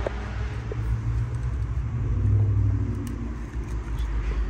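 Lesu RC road roller running as it is driven: a low, steady mechanical hum that swells briefly around the middle, with a few faint clicks.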